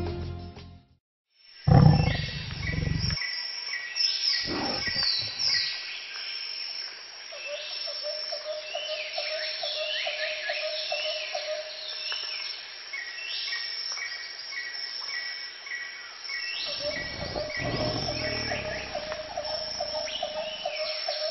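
A tiger roars loudly about two seconds in and again more briefly a couple of seconds later. Then comes jungle ambience of many birds chirping and calling over and over, with a low rumble near the end.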